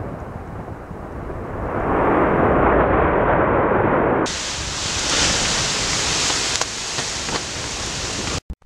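Explosive volcanic eruption: a continuous rushing noise of the ash column, swelling about two seconds in. Just after four seconds it changes suddenly to a brighter hiss, with a few sharp cracks.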